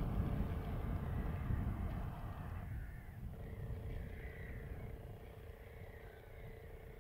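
Wind buffeting the microphone, a low uneven rumble that dies away over several seconds, with faint bird calls above it.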